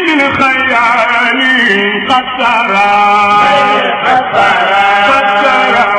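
A voice chanting an Arabic devotional poem, with long drawn-out notes that waver in pitch.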